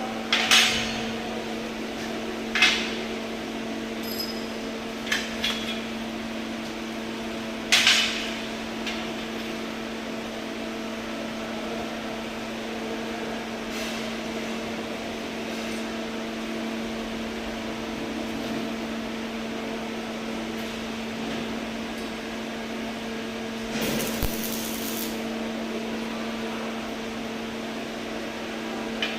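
Steady electrical hum of an idling welding machine, with a few sharp knocks about half a second, 3 s and 8 s in, and a brief hiss about 24 s in.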